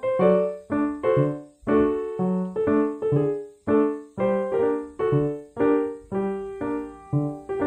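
Background music: a piano-like keyboard playing a steady run of notes, about two to three a second.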